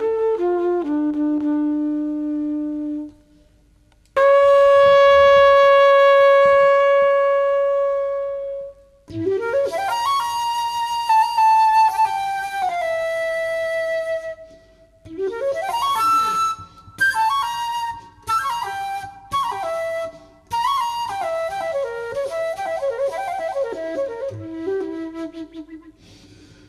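A flute playing solo with almost nothing underneath: one long, loud held note, then running melodic phrases broken by short pauses. At the very start a flugelhorn finishes its phrase on a held low note.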